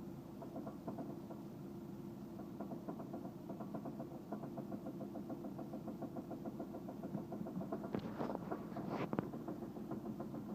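Engine idling with a fast, steady knocking tick running through it, the knock the engine developed after stalling on start. A few sharper, louder clicks come about eight seconds in.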